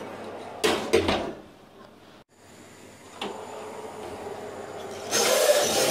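Built-in oven door and metal baking tray being handled: a clunk about a second in, a single click around three seconds, and a longer rushing scrape near the end as the oven door is opened again.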